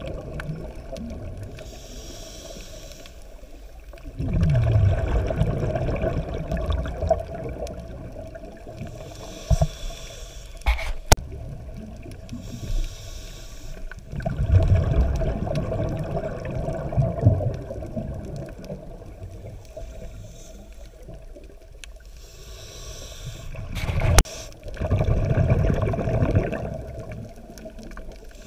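Scuba diver breathing through a regulator underwater: a short hiss on each inhale, then a loud rumble of exhaust bubbles on each exhale, three breaths about ten seconds apart. A couple of sharp clicks fall between the breaths.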